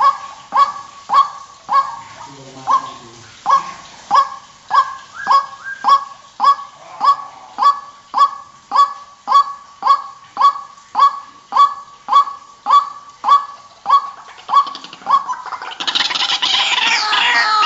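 White-breasted waterhen call used as a lure: one short, honking note repeated steadily, about one and a half to two a second. About sixteen seconds in it gives way to a louder, denser tangle of overlapping calls.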